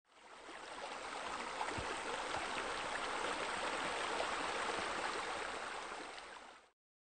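Steady splashing and trickling water, like pool deck jets arcing into the water and bubblers, fading in over the first second and dying away shortly before the end.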